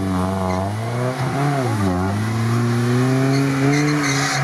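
Chevrolet Niva's engine revving under load, its pitch climbing and dropping several times as the throttle is worked, then holding higher and rising slowly through the second half.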